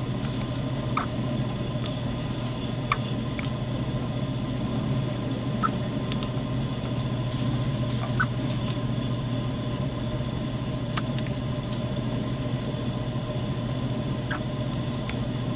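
A person hiccupping: short, sharp hiccups every two to three seconds over a steady low hum.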